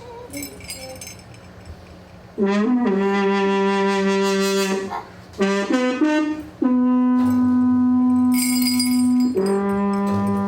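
A homemade wind instrument with a brass-like tone plays long held notes, with a few short notes in the middle. It starts about two seconds in. A high jingling, bell-like shimmer joins near the end.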